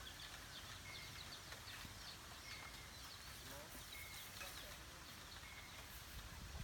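Faint birdsong: a short high whistled note repeated about every second and a half, over quick falling chirps.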